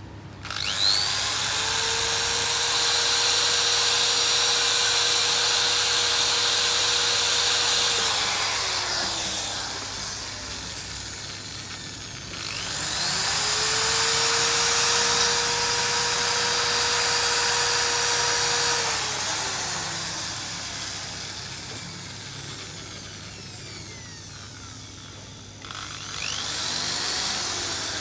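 Small corded electric drill run three times at full speed. Each run winds up quickly, holds a steady whine for several seconds and then coasts down in pitch as the trigger is let go; the third run starts near the end.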